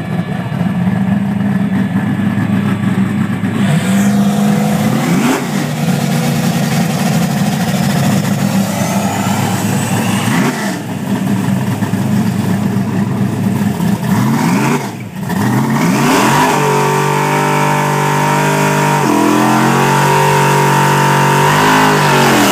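Turbocharged Ford Mustang drag car accelerating away down the strip on a full pass, its engine note climbing and dropping several times as it shifts gears. In the second half a car engine runs close by with a steady, wavering note.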